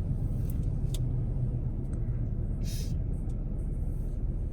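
Motor vehicle engine running with a steady low rumble. A brief hiss comes a little before three seconds in.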